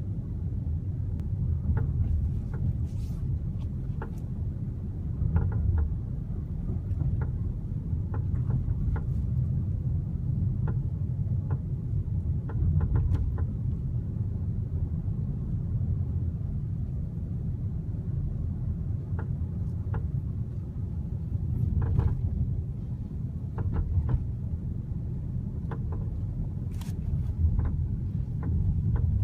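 Ford Fiesta running with a steady low rumble and irregular short clicks and knocks scattered through it: the abnormal noise the car is making.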